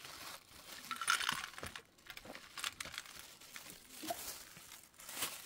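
Thin plastic wrapping rustling and crinkling as it is pulled out of a cardboard box, with scattered light glassy clinks.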